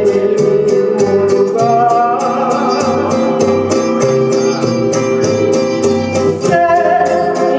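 A woman singing into a headset microphone over instrumental accompaniment with a quick, steady strummed beat. She holds long notes about two seconds in and again near the end.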